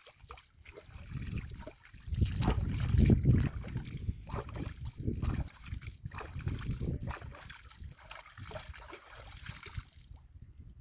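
Water sloshing and splashing in irregular surges, loudest a couple of seconds in.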